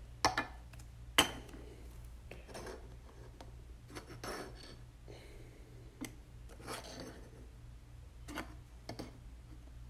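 Trading cards being handled at a table: light scrapes, rustles and a few sharp clicks, the sharpest about a second in. A steady low hum runs underneath.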